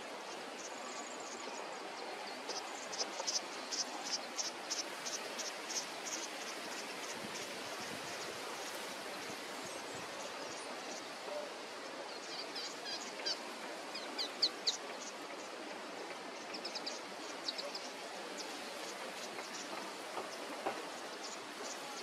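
Outdoor ambience: a steady hiss, with runs of short, high-pitched chirps at about three a second, coming in several bursts.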